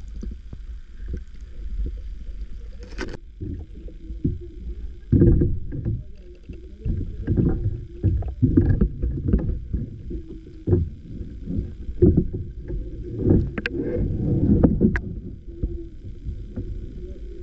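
Muffled underwater sound from a camera held below the surface of a stream: low rumbling water movement with many irregular thuds and knocks, busiest through the middle.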